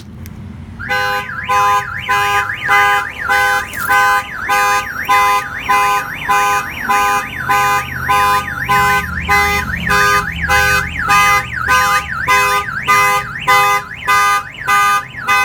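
Viper car alarm siren going off, triggered by its glass break sensor after a tap on the truck's rear window. It starts about a second in and sounds a loud pitched tone pattern that rises and falls about twice a second.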